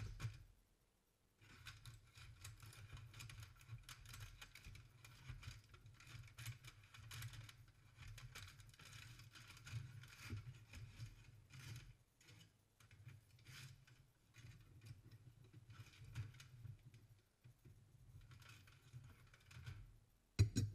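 Faint uneven crackling over a low rumble, with scattered light ticks, while red-hot steel blades are handled with long steel tongs. A sharp metallic clink at the start and another near the end are the loudest sounds.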